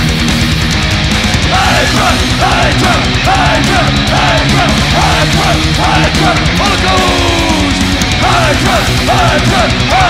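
Heavy metal band playing live: distorted electric guitars over fast, dense drumming, with a short high figure repeating about twice a second from a second or so in.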